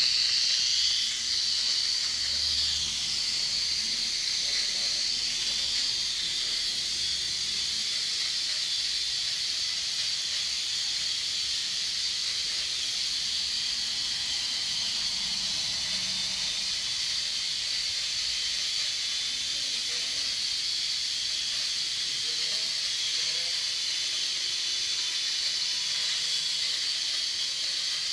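Micro RC helicopter's small electric motors and rotor blades whirring in flight: a steady, high-pitched whine with hiss, holding the same level throughout.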